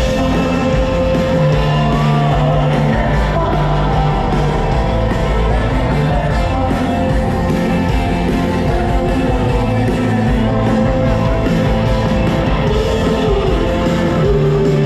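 Live rock band playing a song, with guitar and a singing voice over the full band.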